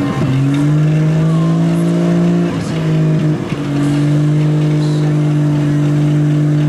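Demolition-derby truck engine revved hard and held at high revs at a steady pitch, dropping off briefly twice, about two and a half and three and a half seconds in.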